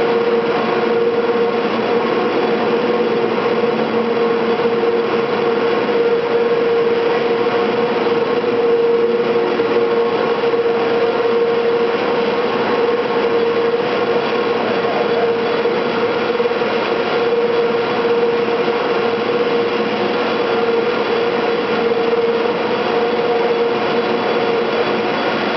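San Francisco cable car powerhouse winding machinery running: electric-driven gearboxes and large spoked winding sheaves hauling the moving street cables. A loud, steady machine drone with one constant humming tone through it.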